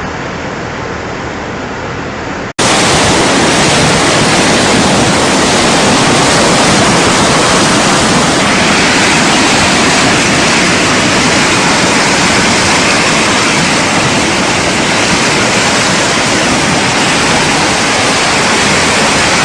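Rushing floodwater: a loud, steady roar of water that breaks off abruptly about two and a half seconds in and resumes louder and fuller.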